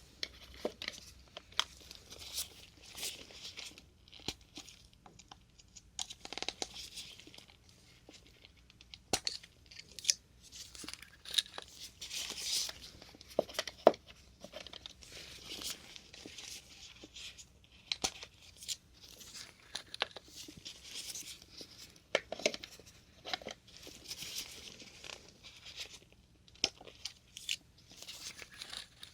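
Plastic syringe caps being pulled off one after another, close up: irregular sharp clicks and pops mixed with short bursts of plastic rustling and scraping.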